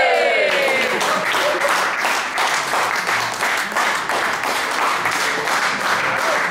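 A group of people clapping and applauding to welcome arrivals, with a cheer trailing off at the very start.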